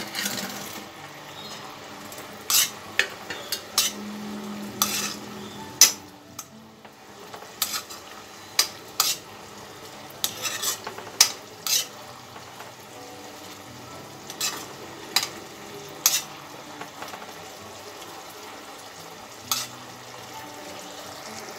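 Metal ladle stirring cabbage manchurian balls through thick boiling gravy in a kadai, knocking against the pan in irregular sharp clinks, over a steady bubbling hiss from the gravy.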